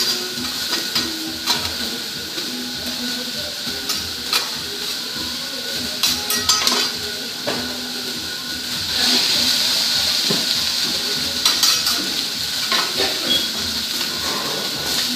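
Food sizzling on a hot teppanyaki steel griddle, with a metal spatula and knife clicking and scraping against the plate. About nine seconds in the sizzling grows louder for a couple of seconds.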